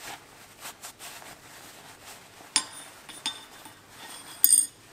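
Rag rubbing over a freshly oiled forged steel soapstone holder on an anvil face, with a few light metallic clinks as the piece knocks against the anvil; the loudest clink comes near the end.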